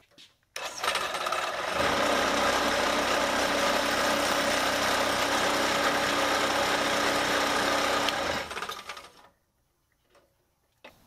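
Delta benchtop drill press switched on and running steadily for about seven seconds while a wooden insert blank is worked on it, then switched off and spinning down about eight seconds in.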